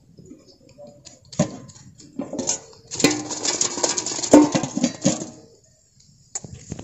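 Cast net being handled and shaken out by hand, its sinker weights clinking and rattling: a few clicks at first, then a dense clattering run lasting about two seconds.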